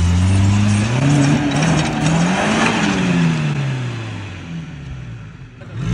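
Maruti Gypsy's engine revving hard under load while the 4x4 struggles over an off-road obstacle. The pitch climbs to a peak about two and a half seconds in, with a rush of noise at the top, then falls away, and rises briefly again at the end.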